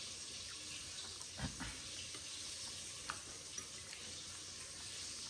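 Chicken frying in hot oil, a steady sizzle, with a soft knock about a second and a half in and a light click about three seconds in.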